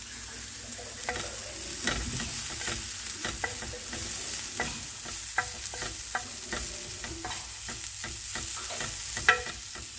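Diced onion, green pepper and mushrooms sizzling steadily in olive oil in a nonstick pan while a wooden spatula stirs them, with frequent short scrapes and taps of the spatula against the pan. A sharper tap comes near the end.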